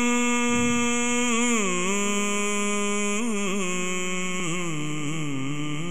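A man singing a naat into a microphone, a single unaccompanied male voice. He holds one long steady note, then slides down into a run of quick ornamented turns, the melody stepping lower toward the end.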